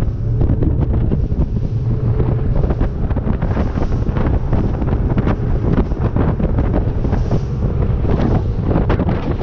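Strong wind buffeting the microphone in irregular gusts aboard a rigid inflatable boat running across choppy sea. The rush of water and the boat's outboards run underneath.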